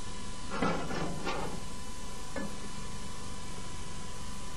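Wooden spoon stirring chopped onion as it sautés in butter in an aluminium saucepan. It scrapes and knocks against the pan a few times in the first half, over a steady hiss.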